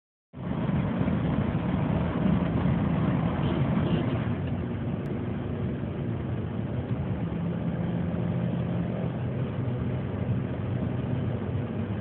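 Toyota car driven at high speed on a highway: steady engine drone with road and wind noise.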